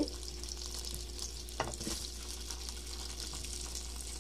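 Hot ghee and oil sizzling steadily in a nonstick frying pan as sliced onions are added, with one short knock about a second and a half in.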